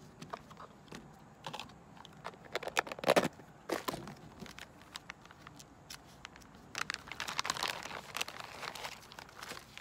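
Thin plastic zip bags crinkling and rustling as they are handled, with scattered small clicks and taps. The loudest rustle comes about three seconds in, and another stretch of crinkling comes around seven to eight seconds in.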